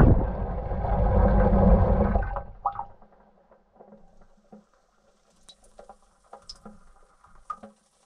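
Gorenje WA 65205 front-loading washing machine tumbling, with water and suds sloshing loudly in the drum, heard from inside the drum. About two and a half seconds in the drum stops and the sound drops to faint drips and small ticks.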